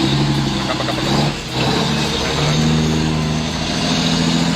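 Heavy truck engine running steadily under load, with a brief dip about a second and a half in and a step up in pitch about two seconds in.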